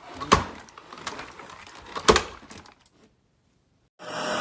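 Light clatter with two sharp knocks about two seconds apart, then dead silence, then an upright vacuum cleaner running, starting abruptly near the end.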